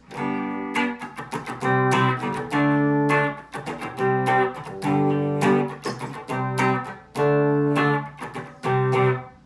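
Fender Stratocaster electric guitar, Mexican-made and fitted with Lace Sensor pickups, played on its humbucker setting: a run of strummed chords with short breaks between them, stopping just before the end.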